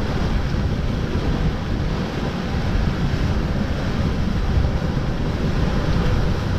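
Strong wind buffeting the microphone in a steady low rumble, over the rush of rough seas along a small sailing yacht's hull.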